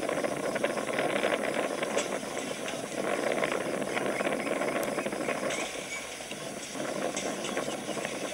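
Dense, steady mechanical clicking and rattle with a hiss behind it, easing a little about six seconds in.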